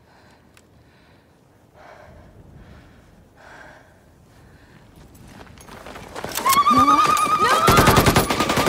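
Quiet at first, then a woman's long, shrill, wavering scream of a name. Rapid automatic rifle fire breaks out under it near the end.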